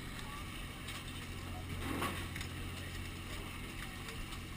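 Sportfishing boat's engine droning steadily, with faint scattered mechanical clicks over it.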